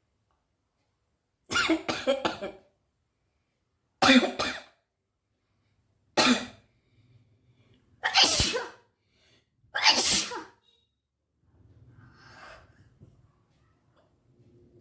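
A woman sneezing in a series of about five loud, short bursts, roughly two seconds apart. The sneezes are brought on by tickling her nose with grass.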